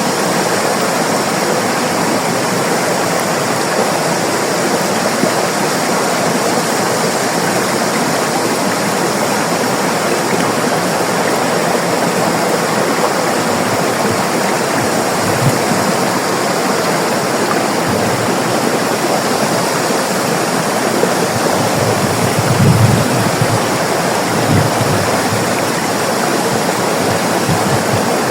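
River water rushing and splashing over rocks in a steady, full wash, with a few brief low thuds from the flow about two-thirds of the way in.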